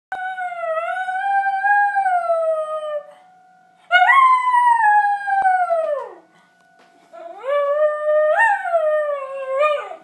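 A dog howling three times, each howl two to three seconds long and dropping in pitch at its end, set off by an emergency warning siren whose faint steady tone shows in the gaps between howls.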